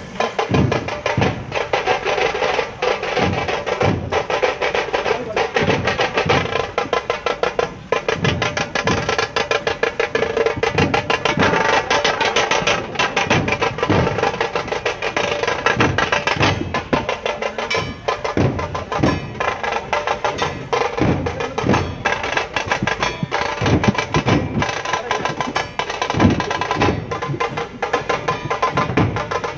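Music with a busy, steady drum and percussion beat.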